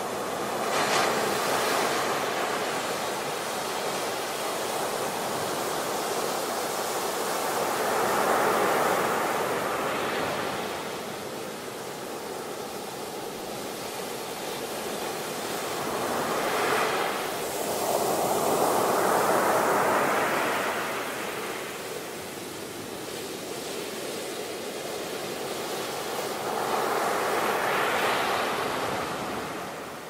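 Ocean surf: waves breaking and washing up a beach. The sound swells and ebbs in surges roughly every eight to ten seconds.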